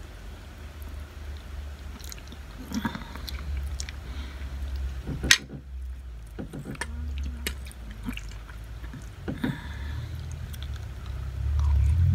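A person chewing food at close range, with scattered clicks of a metal fork and spoon against a china plate and one sharp clink about five seconds in, over a low steady hum. It gets louder near the end as noodles are lifted to the mouth.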